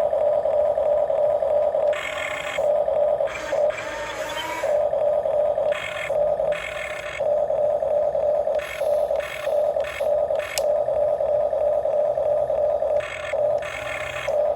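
Electric gear motors of a radio-controlled model excavator whining. A steady drone runs underneath, and higher, buzzier whines start and stop every second or two. There is a single sharp click about ten and a half seconds in.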